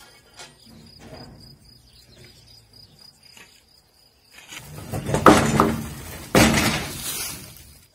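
Insects trilling steadily on one high note. From about four and a half seconds in, a loud rushing noise drowns them out for about three seconds.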